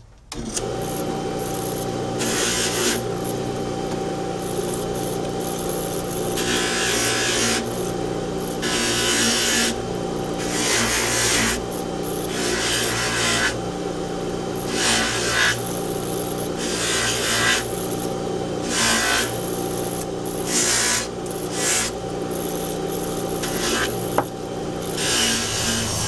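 Bench buffing machine running steadily, with repeated bursts of rushing, rubbing noise as a sterling silver buckle is pressed against the wheel charged with rough compound. This is the pre-buff that takes fine tooling marks out of the silver.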